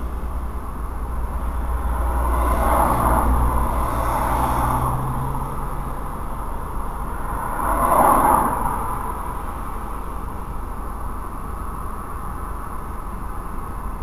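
Two vehicles passing on the road: a longer swell about two to five seconds in, then a shorter, louder pass about eight seconds in, over a steady low rumble.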